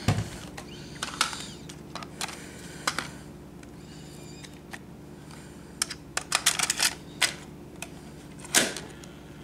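Irregular plastic clicks and taps from handling a VHS-C camcorder's open cassette compartment. There is a quick run of clicks about six to seven seconds in and a louder click near the end.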